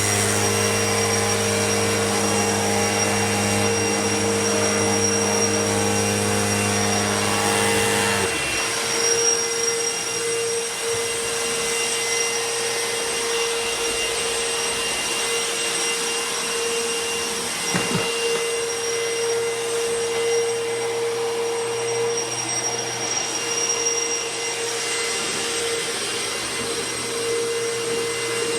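Royal ProSeries Quick Rewind vacuum cleaner running steadily with a high whine; its deeper hum drops away about eight seconds in, and there is a brief knock about eighteen seconds in.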